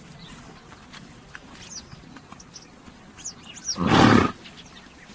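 A horse snorts once about four seconds in, a short, loud, noisy blast of breath, over faint chirps of birds.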